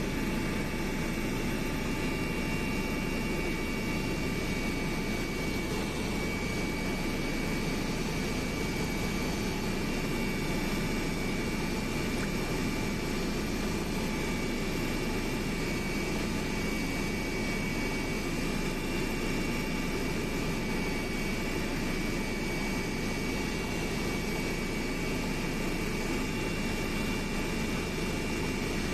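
Steady drone of an airliner in flight, heard from inside the passenger cabin: engine noise and airflow as a constant rush, with a few faint steady whining tones above it.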